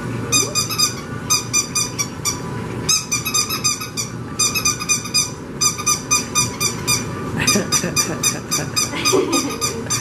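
Squeaky dog toy squeezed over and over in quick runs of high-pitched squeaks, about five or six a second, with short breaks between the runs.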